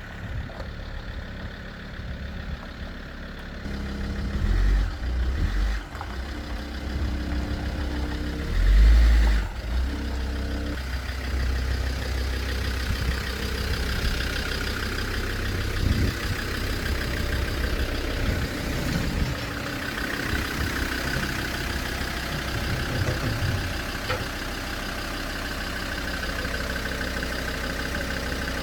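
Land Rover Discovery 2 engine running steadily, with heavy low thumps about five and nine seconds in.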